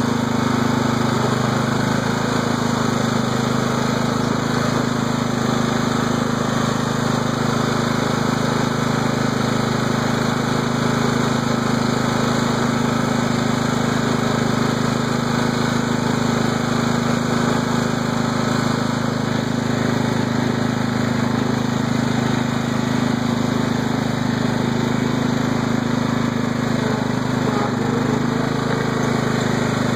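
Craftsman riding lawn tractor's engine running steadily while the tractor is driven, heard close up from the seat.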